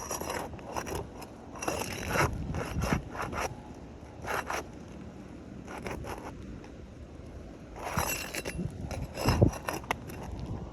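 Metal tool scraping, rubbing and knocking against asphalt roof shingles in short irregular bursts as overdriven roofing nails are worked loose, with one sharper knock near the end. Wind rumbles on the microphone.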